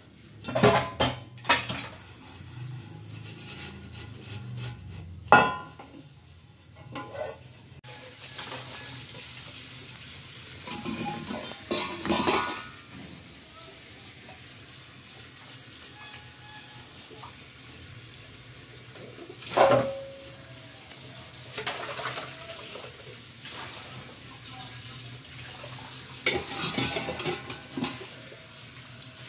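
Stainless-steel kitchen containers clanking and clinking against each other as they are washed and stacked in a sink, with water running and splashing in between. Two louder clangs stand out, about five seconds in and near the twenty-second mark, the second ringing briefly like struck steel.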